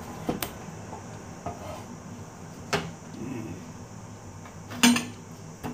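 A steel cleaver knocking on a wooden chopping board while cutting raw pumpkin into cubes: a handful of sharp, separate knocks, the loudest a little before the end.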